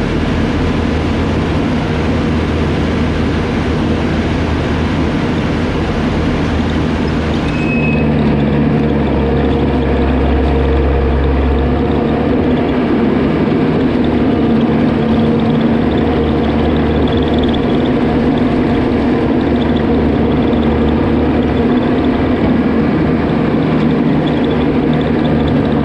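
Vehicle engine running steadily, a continuous low hum with a steady pitch, its low end growing a little stronger about eight seconds in.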